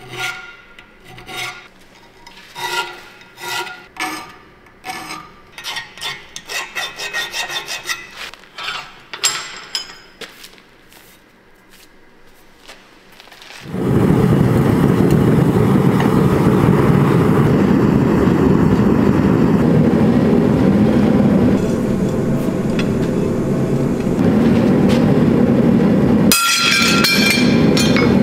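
Hand file rasping in repeated strokes across the steel hatchet head held in a vise, quickening for a few seconds in the middle. About fourteen seconds in it gives way to the loud, steady rushing noise of a gas forge burner, with a brief burst of metallic clinks near the end.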